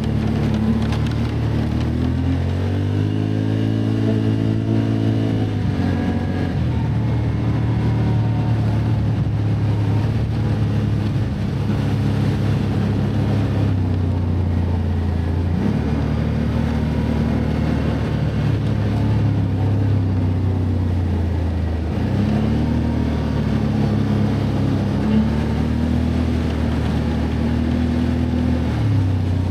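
Can-Am ATV engine running steadily under load while being ridden over a rough trail, its pitch rising and falling with the throttle several times.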